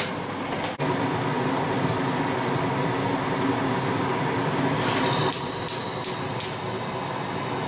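Steady fan-like hum of running kitchen machinery, with a sharp click at the start and a quick run of four or five light clicks near the end.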